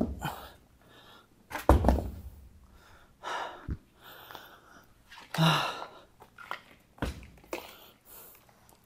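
Dumbbells set back down on a metal rack: two heavy thunks about two seconds apart. Lighter knocks, a click and rustling follow as a plastic water bottle and towel are picked up.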